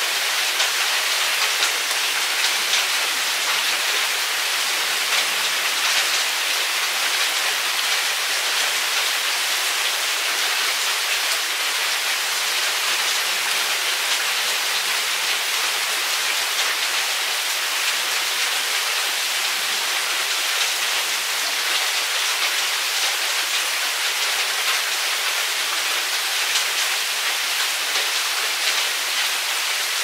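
Steady rain falling: an even hiss full of separate drop hits, with no change in strength.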